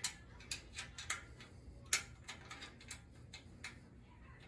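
Irregular light clicks and taps of small hardware parts being fitted and worked into a metal stand bracket, with one sharper click about two seconds in.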